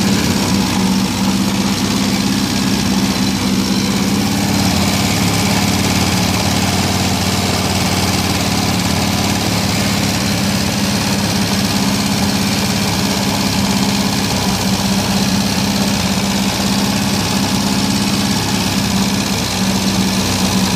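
1974 Toyota Corolla's four-cylinder engine idling steadily, running again after sitting unused for about 25 years.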